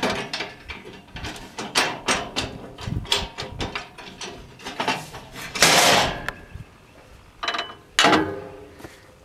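Irregular mechanical clicks and clunks, with a short rushing hiss a little past the middle.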